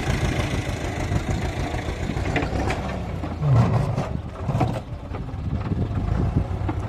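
An engine running steadily with a low rumble, rising in a brief louder surge about three and a half seconds in.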